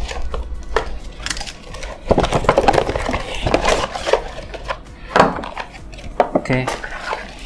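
Cardboard and plastic headphone packaging being opened and handled: the inner sleeve and tray are slid out of the box with scraping, rustling and light knocks, and one sharper knock a little after the middle.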